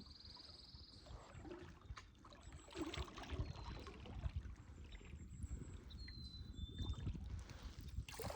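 Faint water sloshing and splashing around a canoe being paddled and manoeuvred in shallow water, with scattered light knocks.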